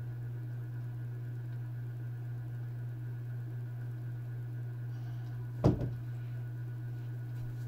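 A single dull knock or thump about two thirds of the way through, with a faint second tap just after it, over a steady low hum.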